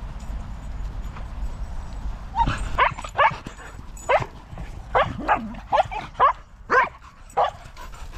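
A dog yipping and barking excitedly at treat time: about ten short, high-pitched yips from a couple of seconds in until near the end.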